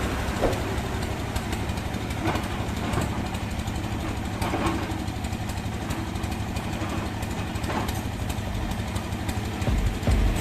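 Toy RC excavator running: a steady mechanical hum with a few light knocks.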